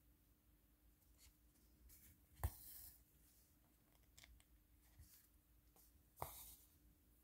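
Faint tabletop handling while working on a craft canvas: two light taps, about two and a half and six seconds in, with soft scratching and rustling between.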